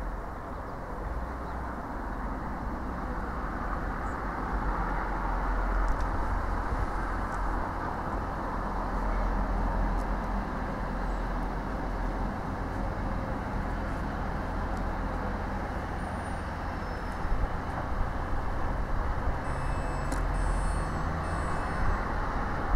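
Class 185 Siemens Desiro diesel multiple unit running in slowly and drawing to a stop at a platform: a steady diesel engine and wheel rumble. A few short high-pitched squeaks come near the end.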